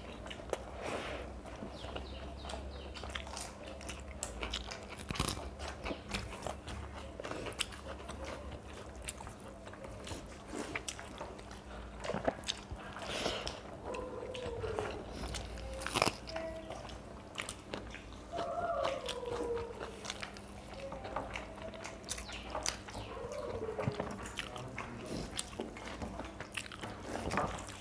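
Two people eating watery panta bhat by hand from steel plates: chewing and crunching, wet mixing of the soaked rice, and many light clicks of fingers and food against the plates.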